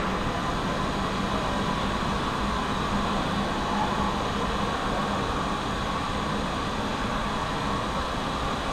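Steam locomotive and tender moving slowly along the platform: a steady hiss and rumble with no distinct beat.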